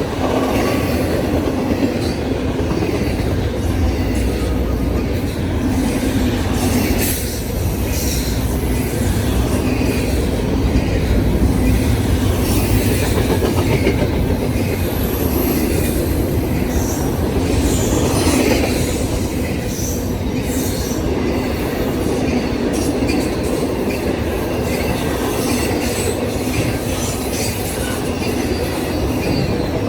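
Freight train's cars rolling past at speed: a steady, loud rumble with wheels clacking over rail joints throughout.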